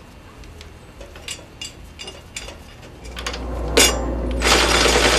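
Light metallic clinks and clicks of hand tools being picked up and handled. From about three seconds in comes a louder scraping, rustling noise that builds toward the end.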